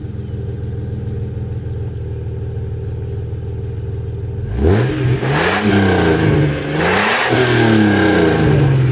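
1999 Jeep Grand Cherokee's 4.0-litre straight-six idling with a deep rumble through a newly fitted catback exhaust, then revved up twice about halfway through, the second rev falling away slowly near the end. The exhaust note is aggressive.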